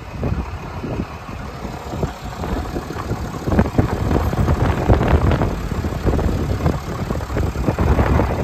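Cummins 6.7-litre turbo-diesel inline-six idling, with gusts of wind buffeting the microphone.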